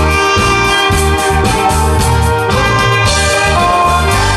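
Saxophone playing a melody over a backing track with a steady bass-and-drum beat.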